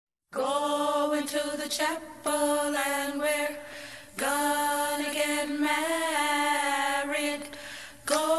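Voices singing long, held wordless notes without accompaniment, choir-like, with short breaks about two and four seconds in.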